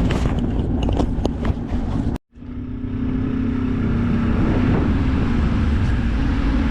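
Boat outboard motor running steadily at speed, a constant hum under heavy wind and water noise. The sound cuts out abruptly for a moment about two seconds in, then comes back.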